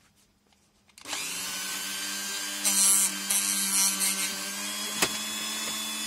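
Dremel rotary tool switched on about a second in and running steadily at low speed with a hum. A harsher hiss comes in from about two and a half to four seconds as the felt polishing wheel is pressed against the steel lockpick, and there is one sharp click near the end.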